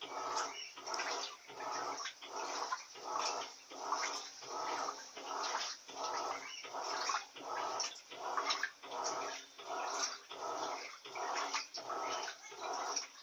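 Electrolux Silent Control 16 kg (LAC 16) top-load washing machine agitating on its duvet program, churning water and a heavy duvet in even strokes about twice a second.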